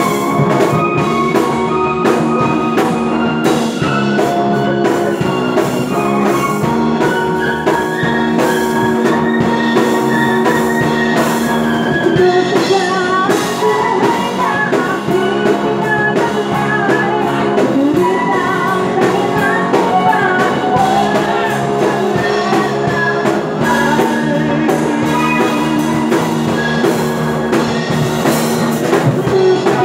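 Live amateur band playing an upbeat rock song on drum kit, electric guitar and keyboard, with a woman singing into a microphone.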